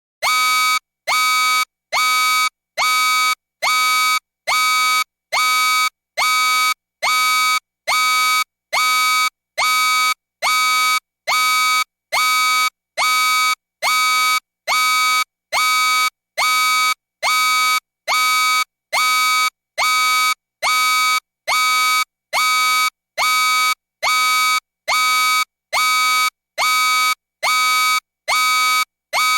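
Loud electronic warning beep sound effect: a buzzy, rich tone repeating evenly about once a second, each beep lasting most of a second with a short silent gap between.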